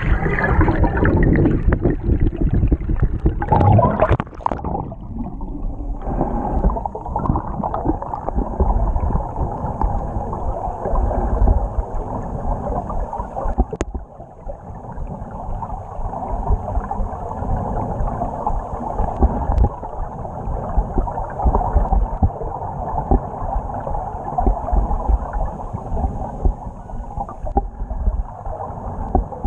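Water noise heard underwater through a camera's waterproof housing, muffled and dull. It is choppy and louder for the first few seconds, then settles into a steady wash.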